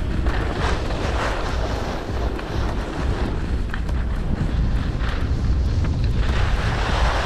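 Wind buffeting the microphone of a skier's camera on a fast downhill run, a heavy low rumble, with the rasp of skis scraping over packed, tracked piste snow that swells every second or so.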